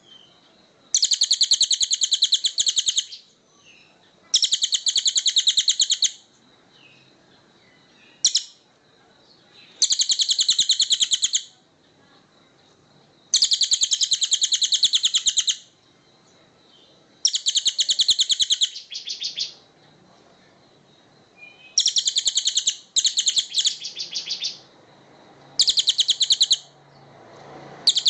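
A songbird singing rapid, high, buzzy trills in bouts of about two seconds, repeated again and again with short pauses between them.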